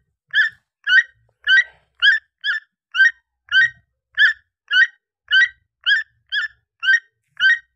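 Macaw calling: a steady run of short squawks, evenly spaced at about two a second.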